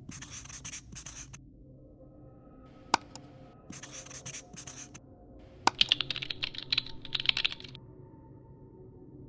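Marker pen writing, its tip scratching across the surface in several bursts of quick strokes, with a sharp click about three seconds in.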